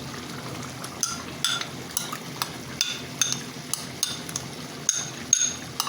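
Chicken sizzling in a frying pan on a high flame while a spoon stirs it, with irregular scrapes and short clinks of the spoon against the pan.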